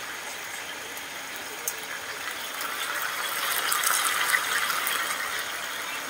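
Catfish pieces frying in oil in a wok on a gas stove: a steady sizzling hiss that swells about halfway through, with a few small pops.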